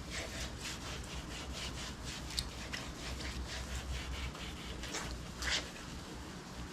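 Sandpaper rubbed by hand back and forth over a painted plastic car bumper in quick strokes, several a second.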